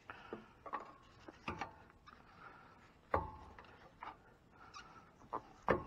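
Scattered metal clinks and knocks, some with a brief ring, as a pry bar and the new shock absorber's lower eye are worked against the steel lower shock mount to line up the bolt, with faint scraping in between. The loudest knocks come about three seconds in and again near the end.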